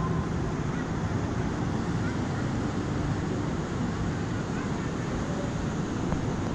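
Beach ambience: a steady low rumble with faint voices of people on the beach.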